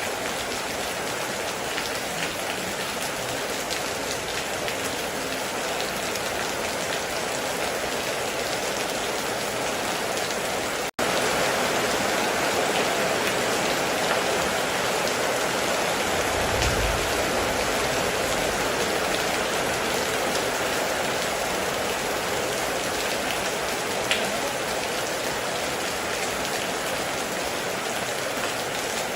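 Heavy rain falling steadily on a metal roof, a dense even hiss with scattered drop ticks. About a third of the way in it cuts out for an instant and resumes slightly louder, and a brief low rumble comes a few seconds later.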